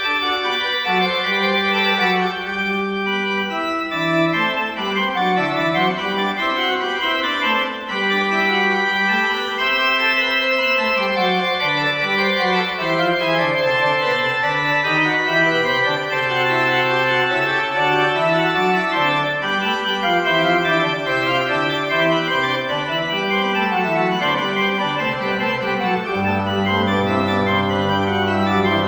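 Organ playing slow, sustained chords over a bass line that moves up and down. A deep held bass note comes in near the end.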